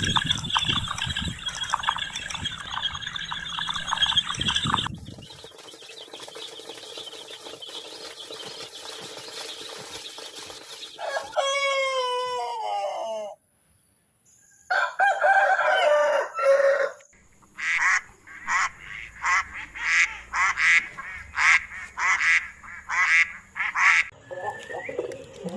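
A string of animal calls in separate cuts, chiefly domestic fowl: a crow that falls in pitch, and near the end a run of about a dozen short calls in a steady rhythm, roughly two a second.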